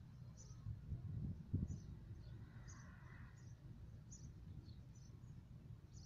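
Faint, short high bird chirps repeating about twice a second, over a low rumble with a single bump about one and a half seconds in.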